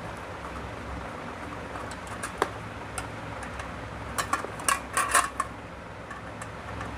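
Sharp metallic clicks and clinks of a screwdriver and the steel distribution box being handled as the cover's Phillips screws are undone: one click about two seconds in, then a quick cluster of clinks and rattles around four to five seconds, over a steady low hum.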